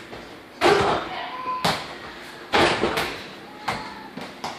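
Over-the-door mini basketball hoop being played: a run of sharp knocks and thuds, about seven in all, as the ball hits the backboard and the door it hangs on and bounces down. The loudest knocks come about half a second in and a little past the middle.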